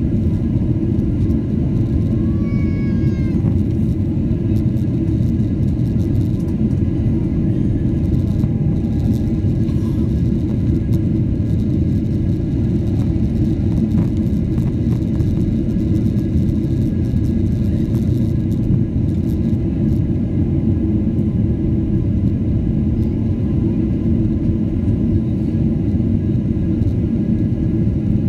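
Airliner cabin noise in flight: a steady, loud rumble of jet engines and airflow heard from a window seat. About three seconds in, a short high sound bends up and down.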